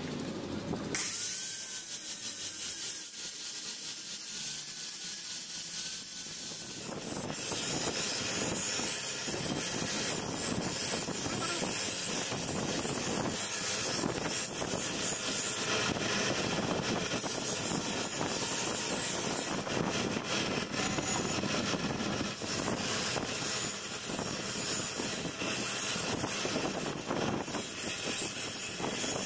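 Motor-driven grinding wheel grinding the steel blade of a kukri knife: a continuous harsh rasping hiss of steel on the abrasive wheel. A thinner, mostly high-pitched hiss comes first, and the full grinding noise sets in about seven seconds in.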